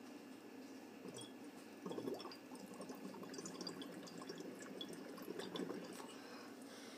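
Faint bubbling of water in a glass as breath is blown through a drinking straw into phenol red indicator solution, swelling a few times with small ticks of bubbles; the carbon dioxide in the breath acidifies the water.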